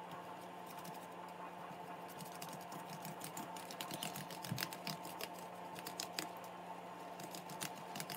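Faint, irregular light taps and clicks of a pastry brush dabbing egg wash onto shaped bread dough and knocking against a ceramic bowl, over a steady low hum.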